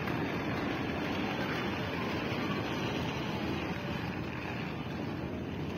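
Steady, even rushing noise with no distinct events: wind and open-air ambience on a station platform.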